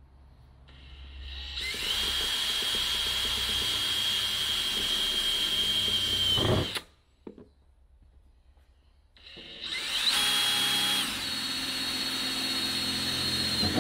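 Cordless DeWalt drill running in two long bursts with a steady high whine, drilling 3mm pilot holes through the van's body panel for the hook-up socket's screws. The first burst builds up about a second in and cuts off suddenly past the middle. The second starts a couple of seconds later and runs on.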